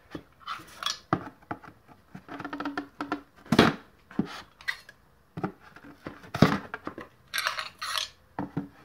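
Irregular metallic clinks and taps of small steel valve lash caps being pulled off the valve stems of an air-cooled VW engine and set down on the metal valve cover, several ringing briefly, with a scraping rattle near the end.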